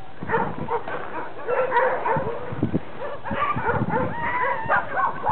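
A yard full of chained sled huskies barking and calling over one another, many dogs at once. About four seconds in there are some longer, wavering high calls.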